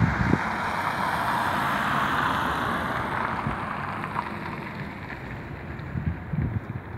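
A car passing on the road, its tyre hiss swelling and then fading as it drives away. Wind buffets the microphone with low thumps near the start and again near the end.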